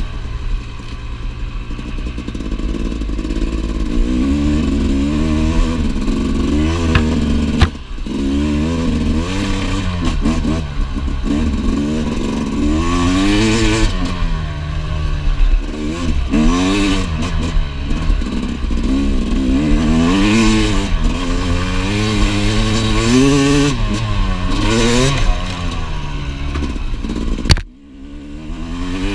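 2017 Yamaha YZ250X single-cylinder two-stroke engine being ridden hard, revving up and down every second or two as the rider works the throttle and gears. A couple of sharp knocks from the bike over rough ground, one near the end followed by a brief drop in engine sound.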